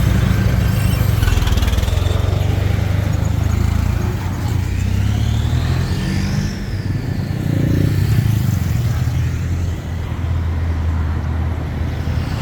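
Road traffic with a vehicle engine running steadily. About five seconds in, a whine rises and then falls away over two seconds or so.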